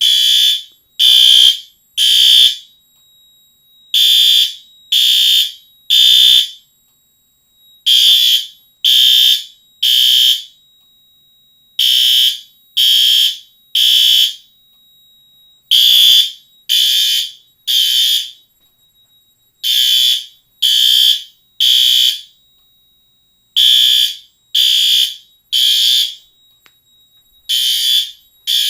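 Fire alarm horns sounding the temporal-three evacuation pattern: three short blasts about a second apart, a pause, then again, repeating about every four seconds. The alarm has been set off from a manual pull station during a system test.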